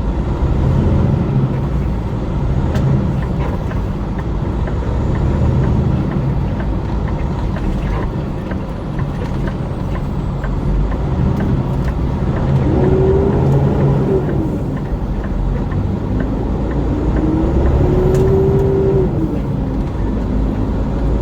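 Road vehicle's engine and road noise while driving off from a traffic light. A whine rises and falls about halfway through, then rises again near the end.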